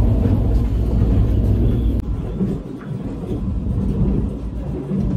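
Steady low rumble of a KTX train running at speed, heard in the vestibule between carriages; it eases and drops in loudness about two seconds in.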